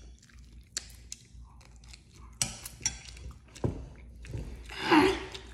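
Close-up mouth sounds of chewing soft food, with a metal spoon scraping and clinking against a ceramic bowl in scattered sharp clicks. A brief vocal noise from the eater about five seconds in.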